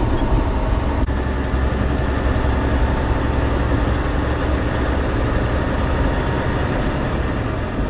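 Inside a semi-truck cab while driving: the diesel engine running steadily under road noise. One sharp click about a second in.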